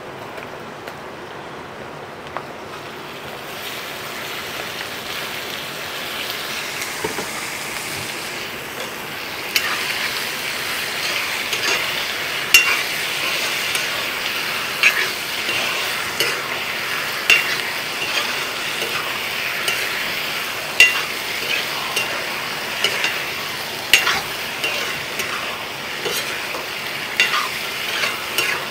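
Raw chicken pieces sizzling as they fry in hot oil with onions and turmeric in a heavy black pot. The sizzle swells a few seconds in and grows louder near the ten-second mark. A metal spatula stirs the meat and clinks sharply against the pot every second or two.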